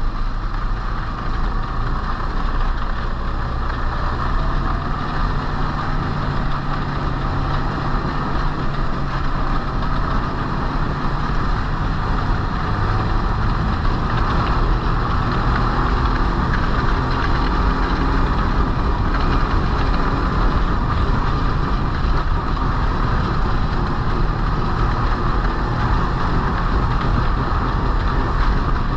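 Snowmobile engine running steadily while riding, a continuous drone with no clear revs up or down.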